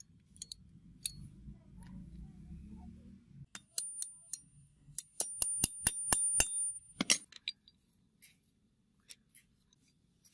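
Hammer tapping a steel roller pin into a pipe cutter's frame: about a dozen sharp metal-on-metal taps with a high ring, coming quicker in the middle, then stopping.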